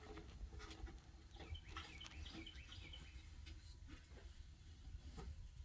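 Faint bird chirps, a quick cluster of short up-and-down notes about two seconds in, over a low background rumble.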